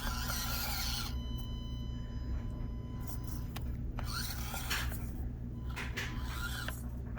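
Small electric motor and gearbox of an SCX24 micro RC crawler whirring in short bursts as it reverses and shuffles to line back up, over a steady low hum.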